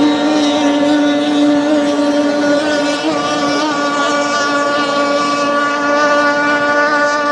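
Vintage racing boat's engine running hard, holding one steady, high-pitched engine note.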